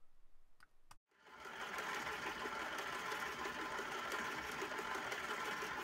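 Stand mixer's electric motor running steadily with an even whine, its beater turning through dry bath bomb mixture. It comes in about a second in.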